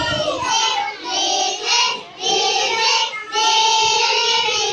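A group of young children singing a song together in unison, in short phrases with a long note held near the end.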